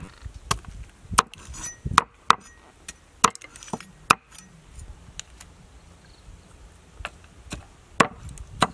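A large kitchen knife chopping on a wooden chopping board: sharp, irregular knocks, several in the first four seconds, a pause of about three seconds, then a few more near the end.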